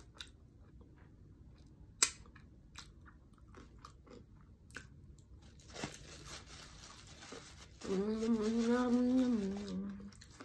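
Close-mic mouth sounds of a person eating a crisp chicken tlayuda: quiet chewing and crunching with small wet clicks, and one sharp click about two seconds in. Near the end comes a drawn-out hummed "mmm" lasting about two seconds.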